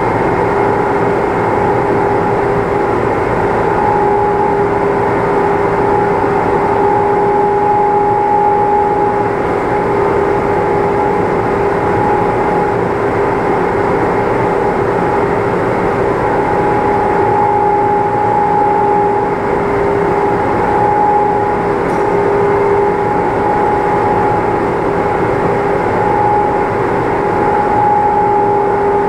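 Steady machine hum with a constant two-note drone that holds level throughout.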